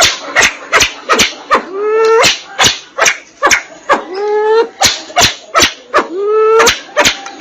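Crested fireback pheasant (sempidan biru) calling: sharp clicking notes about two to three times a second, with a rising, drawn-out call about every two seconds.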